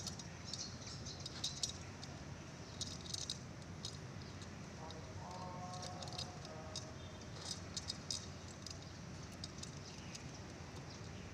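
Chainsaw chain and bar being handled by hand: irregular small metallic clicks, clinks and rattles as the chain links are worked onto the bar.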